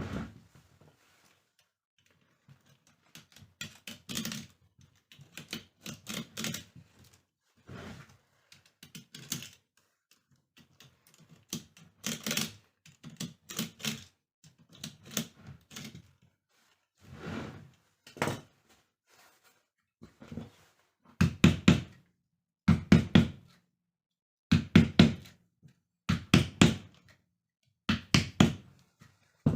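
Repeated knocking, in short clusters of quick strikes with pauses between, loudest in the last third.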